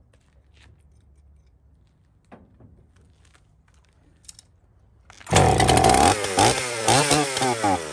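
Two-stroke chainsaw, hand-primed with a little fuel, fires about five seconds in and runs with its revs rising and falling. It is running on the priming fuel because it is not drawing fuel through from its tank, a fault suspected to be a bad carburettor diaphragm.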